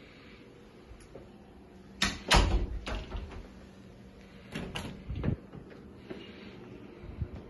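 Closet doors being shut: a loud clunk and rattle about two seconds in, then a few more clunks around five seconds, as a door is swung.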